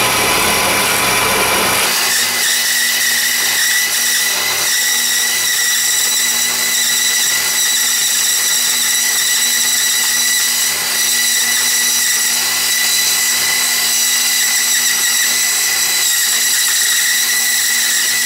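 Craftsman benchtop bandsaw running steadily with an even whine while a small round disc of 2x4 wood is fed through it against a fence, cutting it to half its thickness.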